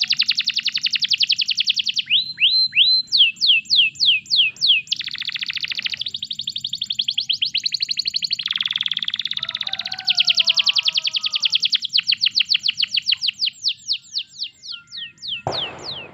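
Domestic canary singing a long, continuous song of rapid repeated trills, each run of notes sweeping down in pitch, the phrase type changing every second or two with a buzzy rolled passage in the middle. A brief harsh burst of noise comes near the end.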